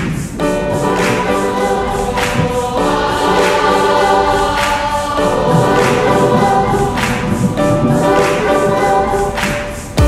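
A group of voices singing a song together in held chords, over a steady percussive beat of about one hit a second.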